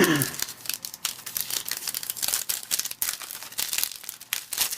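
Crinkling and tearing of a trading card pack wrapper being ripped open by hand, a dense run of irregular crackles.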